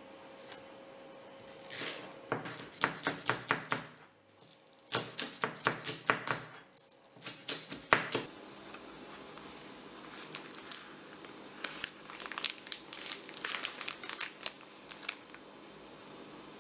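Kitchen knife chopping green onions on a plastic cutting board in quick runs of about six cuts a second, in the first half. After that come softer, scattered crinkling sounds of a plastic bag being handled.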